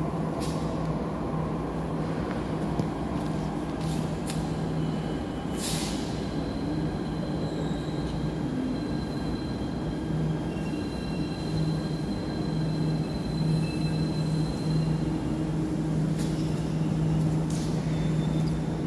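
Jakarta MRT train pulling into the station behind the platform screen doors and slowing to a stop: a steady low rumble and hum, with faint high-pitched tones through the middle as it brakes, and a few sharp clicks.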